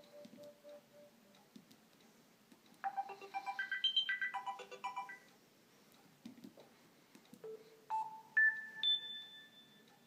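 Sony Ericsson Aino U10 phone playing short previews of its built-in ringtones through its loudspeaker as the ringtone list is scrolled. A quick electronic melody plays about three seconds in, and near the end a run of pure tones steps upward in pitch, each note held.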